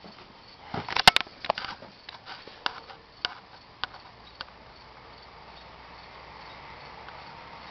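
A cluster of sharp clicks and knocks, then single clicks about every half second, followed by a steadily rising noise as the electric 3500HD truck starts to move. Crickets chirp faintly throughout.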